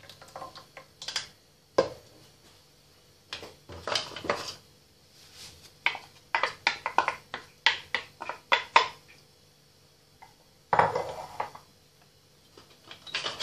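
A ceramic bowl and utensil clinking and scraping against a stainless steel pot as tomato sauce is emptied into it: scattered clinks, with a fast run of clinks in the middle and a longer scrape near the end.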